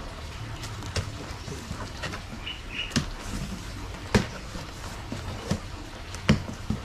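Large cardboard box being opened and handled: scattered, irregular knocks and clicks, the sharpest about four and six seconds in, with two short high chirps about two and a half seconds in.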